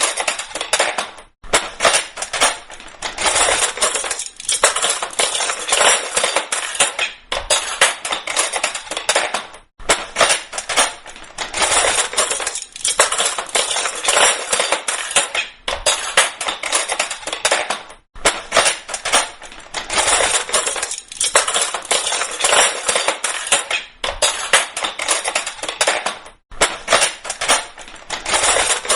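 Metal kitchen cutlery falling and clattering, a dense run of clinks and rattles coming in bouts of several seconds with short breaks between them.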